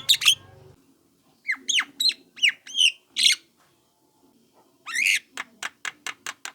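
Young Javan myna calling: a run of about six short squawking, downslurred notes, then after a pause a harsh call followed by a rapid string of clicking notes.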